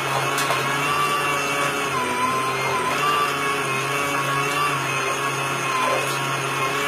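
Compact budget washing machine running, its motor giving a steady hum with a whine that wavers slightly in pitch.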